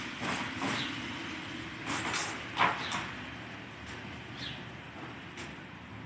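A cardboard pizza box scraping and rustling in short irregular bursts on wet paving as a gull pecks and tugs at it, over a steady hum of street traffic.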